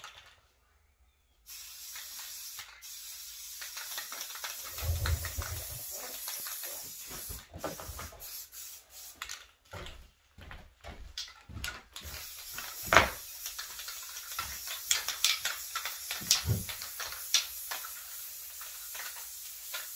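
Aerosol spray can hissing in long passes with short breaks, laying primer or paint onto a race car part, mixed with scattered knocks and clicks.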